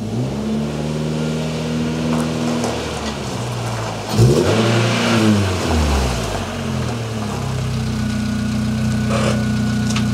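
MG ZR hatchback's engine running as the car moves slowly, with one brief rev up and back down about four seconds in, then steady running again.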